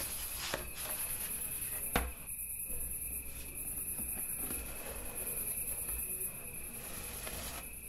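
A hardback book being shut, with one sharp knock about two seconds in, over a steady shrill chirring drone like crickets.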